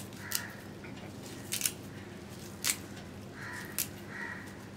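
A handful of light, sharp clicks and soft rustling as a hand pinches and scatters fresh coriander leaves over rice in a pan.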